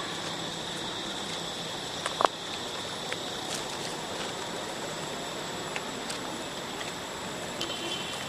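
Steady outdoor background noise with a faint, even high-pitched drone. A single sharp click comes about two seconds in.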